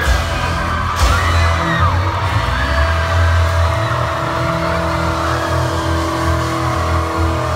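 Live pop-rock band playing through a theatre's PA, recorded from within the audience: held bass and keyboard notes with drums, one sharp hit about a second in, and crowd cheers and screams over the music.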